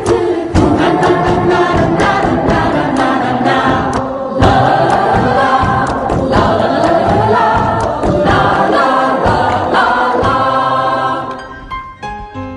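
A group of male voices singing a song together in chorus over a steady beat. Near the end the singing fades and piano notes come in.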